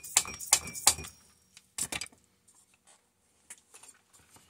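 Metal hand tools clinking and knocking against chainsaw parts during a teardown: a quick run of sharp metallic clicks with a brief ring in the first second, two more knocks about two seconds in, then faint light clicks.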